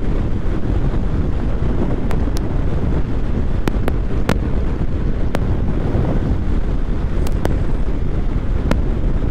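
Heavy wind buffeting the microphone on a moving motorcycle, with engine and road noise beneath it and a few sharp clicks.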